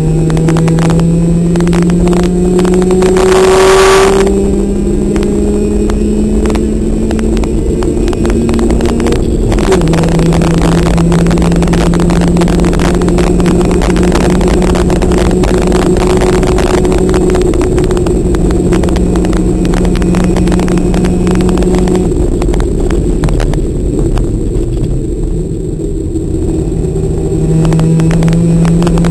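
Competition car's engine heard from inside the cabin, running hard at fairly steady revs. Its pitch steps suddenly up about four seconds in and down about ten seconds in, as at gear changes. It eases off a little past twenty seconds, dips, and pulls back up near the end. A brief rush of noise comes about four seconds in.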